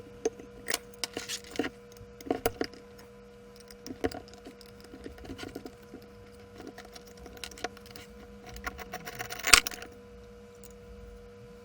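Irregular light clicks and knocks of small parts and tools being handled while a pneumatic pump and valve assembly is taken apart, with one louder knock about nine and a half seconds in, over a faint steady hum.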